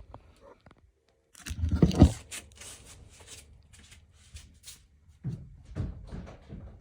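Handling noise: irregular clicks, knocks and rustles, with a heavy thump about two seconds in.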